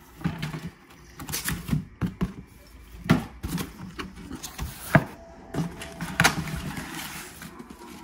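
Corrugated cardboard shipping box being opened by hand: flaps rustling and scraping as they are pulled back, with a few sharp knocks of cardboard against cardboard and the table.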